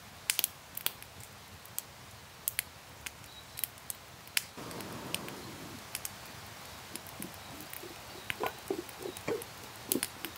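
Wood campfire crackling with sharp, irregular pops. About halfway in a soft steady hiss comes in, and near the end hot water is poured from a camping kettle into a mug, with short gurgles.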